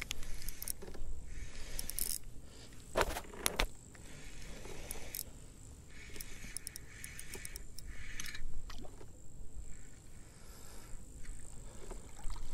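Light clicks and rattles of a spinning rod and reel being handled aboard a trolling kayak, the loudest pair about three seconds in, over a low steady rumble of the kayak moving through the water.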